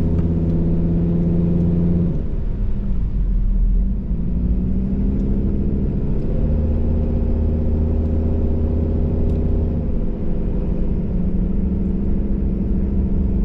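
Car engine and road noise heard from inside the cabin while driving. The engine note drops about two seconds in, rises again over the next few seconds, and drops again near the end.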